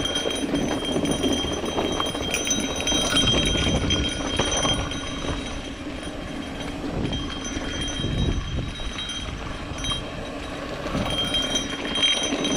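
Mountain bike rolling down a rocky dirt trail: tyres crunching over loose rock and dirt, the bike rattling over bumps, with rushing wind on the microphone.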